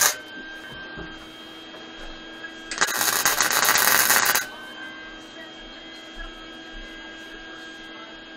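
Wire-feed welder tack-welding a steel bar onto a mini bike's tube frame. A burst of welding arc ends just after the start, and a second one lasting about a second and a half comes about three seconds in, over a steady hum.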